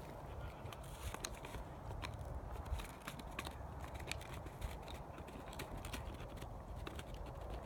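Dog chewing on a flavored chew stick: scattered, irregular faint clicks of teeth on the stick over a low rumble.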